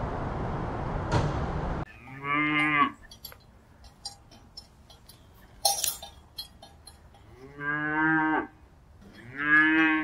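Calf mooing three times in short calls, the last two close together. Before the first call a steady hiss cuts off, and a single sharp click falls between the first and second calls.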